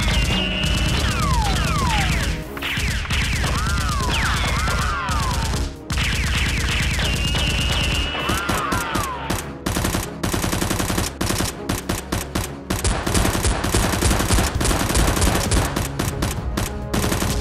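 Gunfire sound effects laid over a Nerf blaster fight: sustained bursts of rapid automatic fire, with high whines sliding down in pitch in the first half.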